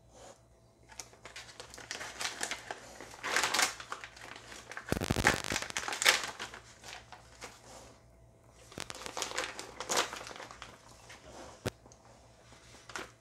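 Crinkling and rustling of a clear plastic jerky pouch being handled and opened, in irregular crackles, with a dull bump about five seconds in.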